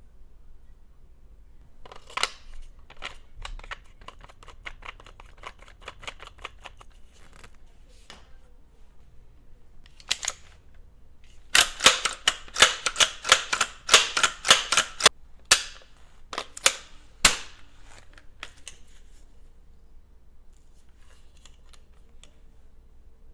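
Suppressed CZ Scorpion firing: a string of fainter shots first, then about halfway through a louder rapid run of shots, about four a second, ending in a few single shots.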